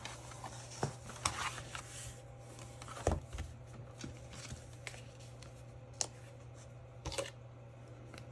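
Paper being handled and folded on a journal: scattered rustles with light taps and clicks, over a steady low hum.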